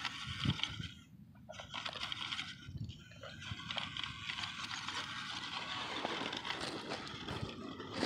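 C24 RC crawler truck driving over loose rock, stones crunching and clattering under its tyres in a dense crackle, with a brief lull about a second in.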